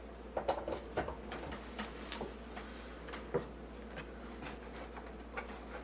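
Scattered light clicks and taps from plugging in and handling a power plug and cords, over a steady low hum.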